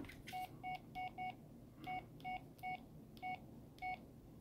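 Keypad beeps from an LG UX3300 flip phone as its keys are pressed: nine short, faint beeps, four in quick succession and then five more spaced out.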